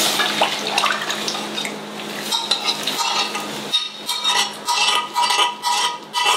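Boiled black chickpeas and their cooking liquid poured into hot masala in a kadai, sizzling. From about four seconds in, a metal spoon scrapes and knocks against the inside of a black Hawkins pressure-cooker pot to clear out the last chickpeas, in quick ringing clinks.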